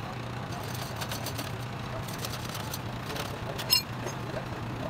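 Metal parts of a truck differential being handled and washed by hand in a steel basin of oily liquid, with a sharp metallic clink about three and a half seconds in, over a steady low hum.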